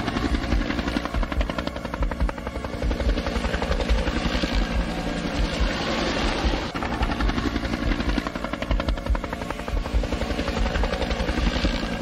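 Helicopter rotor running overhead, a steady, rapid chop of the blades.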